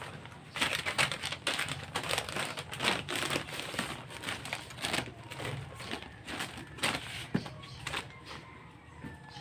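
Hanging strips of plastic sachet packets crinkling and rustling as they are handled and dusted off, in quick irregular crackles that grow sparser near the end.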